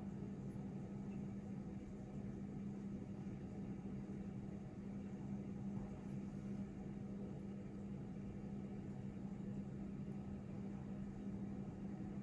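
A steady low hum with an even hiss, unchanging throughout, from a machine running in a small tiled bathroom.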